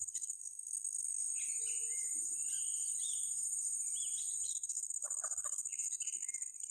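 Steady high-pitched insect chorus, crickets or cicadas, with short bird calls scattered over it; about five seconds in, a brief lower call stands out.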